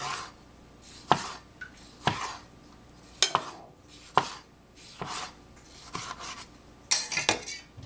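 A cleaver chopping through a tomato onto a plastic cutting board: sharp knocks about once a second, with a quicker run of several cuts near the end.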